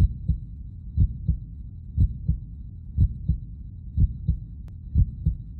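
Heartbeat sound effect: a low double thump, lub-dub, about once a second, six beats in all.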